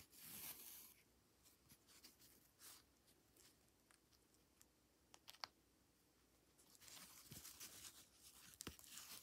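Near silence with faint scratching and rustling of a needle and thread drawn through stiff 14-count cross-stitch cloth, with a sharp click about five seconds in.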